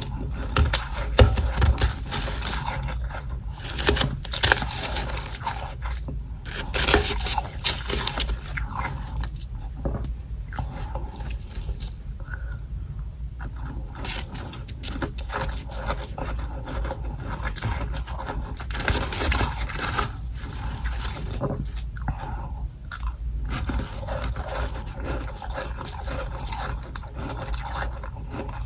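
Freezer frost being scraped off the bottom tray of a freezer: an irregular, continuous run of gritty scrapes, with a few louder strokes about one, four, seven and nineteen seconds in.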